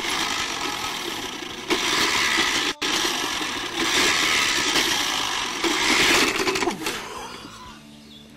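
Old manual push reel mower rolling over dry grass, its spinning reel blades whirring and clattering; it fades near the end.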